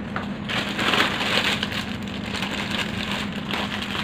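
Plastic chocolate bag crinkling and rustling as it is handled, loudest in the first two seconds, over a steady low hum.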